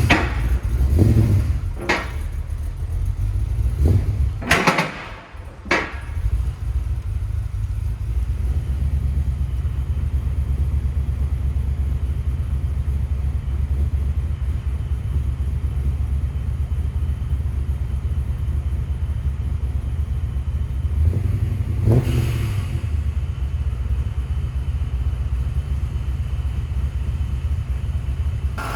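Supercharged Chevrolet small-block V8 in a 1994 Impala idling steadily and smoothly. A few knocks and a short break come in the first few seconds, and there is a single click about twenty-two seconds in.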